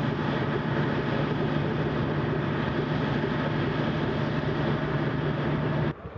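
Train carrying a Soyuz rocket on its rail transporter: a steady drone from the diesel locomotive with rumble and hiss. It cuts off suddenly near the end.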